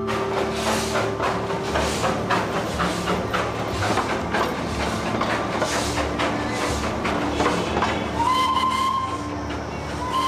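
Darjeeling Himalayan Railway toy steam locomotive working, a dense irregular run of knocks and clatter over hiss. It sounds a short high whistle about eight seconds in and starts another at the very end.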